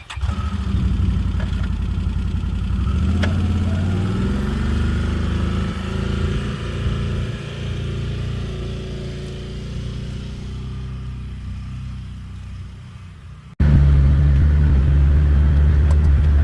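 An engine running at low speed, its pitch shifting a little, then cutting suddenly about three-quarters of the way through to a louder, steady engine sound.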